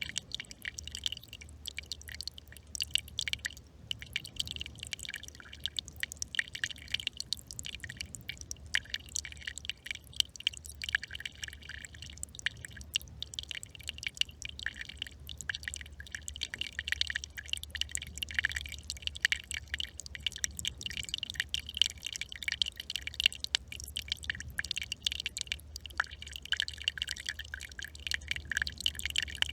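Small stream trickling, a dense, unbroken patter of quick drips and splashes, with a low steady hum underneath.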